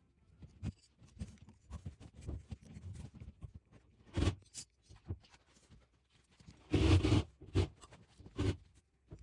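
Hands handling and working plumbing parts: scattered small clicks and rubbing, broken by a few short rasping bursts. The longest and loudest burst is about seven seconds in.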